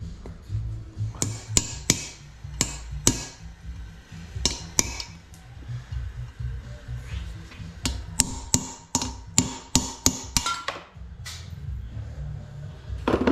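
Hammer tapping metal on a cast-iron Ford side-valve cylinder head during cold metal stitching of a crack: sharp, ringing metallic taps in loose groups, with a quicker run of taps in the second half. Background music plays underneath.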